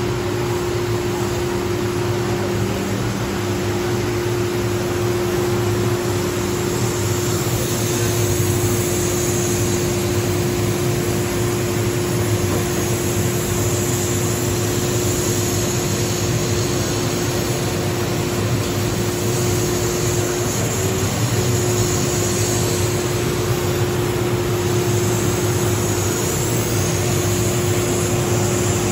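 600 W CO2 laser die-board cutter running while it cuts through thick plywood: a steady rushing roar with a steady hum underneath.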